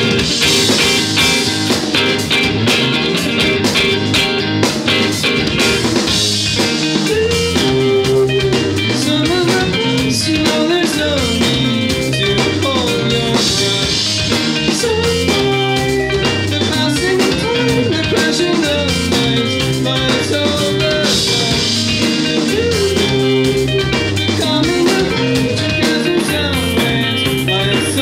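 Live math-rock band playing: a Telecaster-style electric guitar picking intricate lines over a drum kit and a second stringed instrument.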